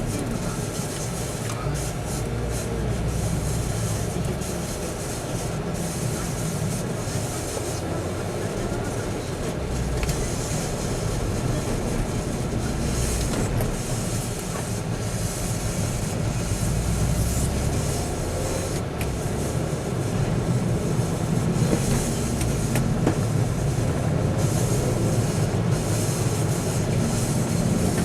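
Steady engine and road rumble inside a moving vehicle's cabin, with low speech or radio faintly under it.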